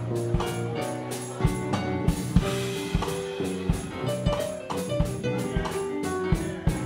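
Live band music: keyboard notes and chords over a drum kit, with regular kick and snare hits.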